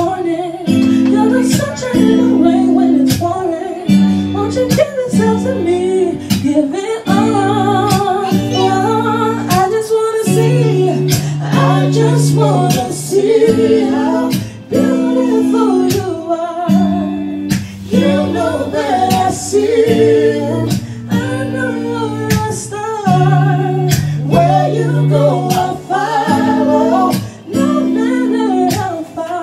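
A woman singing a slow R&B song into a microphone, with a man's voice joining at times, over a backing track of guitar chords and a steady beat.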